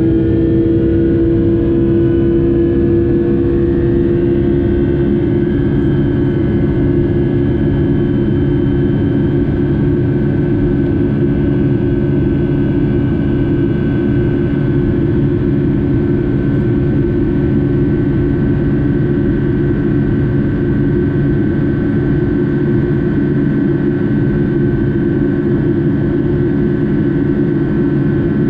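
Rolls-Royce RB211 turbofan engines of a Boeing 757-200 heard from inside the cabin, running steadily with a low rumble and a buzzing drone of steady tones. The main tone rises a little in pitch over the first few seconds, then holds.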